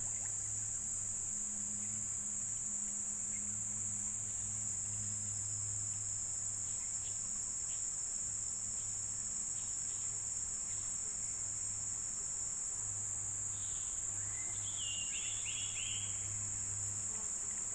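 Steady high-pitched chorus of insects, crickets or similar, with a low hum underneath. A few short high chirps come near the end.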